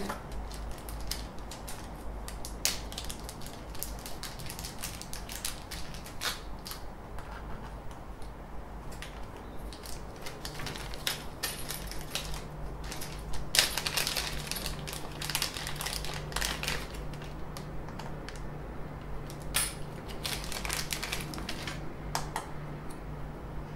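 Irregular clicks and crinkling rustles of small parts and a plastic parts bag being handled, then a part being fitted to the top of a 3D printer. A steady low hum comes in about ten seconds in.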